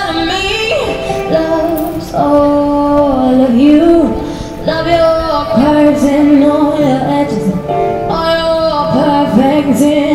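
A young girl singing a song into a microphone while accompanying herself on an electronic keyboard, holding long notes that waver with vibrato.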